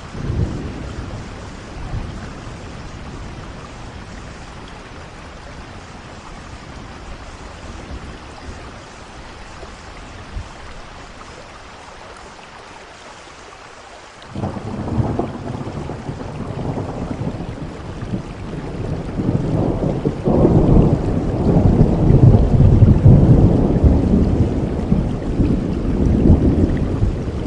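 Steady rain with thunder: a low rumble starts suddenly about halfway through and rolls on, building to its loudest near the end.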